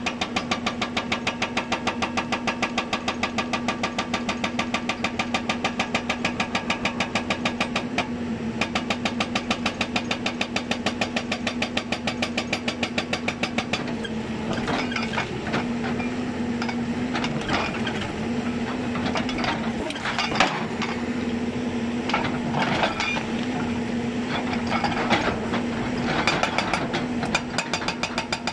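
Hyundai 290 excavator's diesel engine running under load while its hydraulic breaker hammers rapidly and evenly, several blows a second. About halfway through the even hammering gives way to irregular crunching impacts, with the engine note dipping under load, and the rapid hammering returns near the end.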